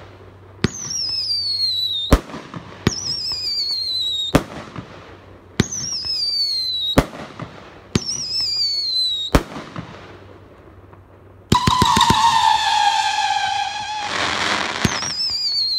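Magnus Fireworks 'Midnight Howling' 500-gram cake firing shot after shot, each a sharp crack followed by a high whistle that slides down in pitch. Near the middle several shots go off in quick succession, then a louder, lower whistle falls in pitch for a couple of seconds before a crackling burst.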